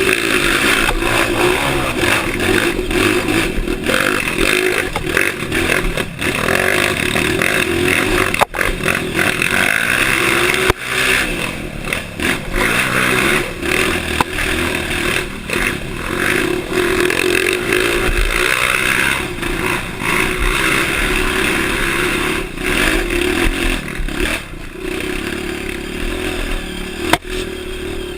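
Honda CRF dirt bike engine being ridden, revving up and down with the throttle, with clattering over the ground and sharp knocks about eight and eleven seconds in.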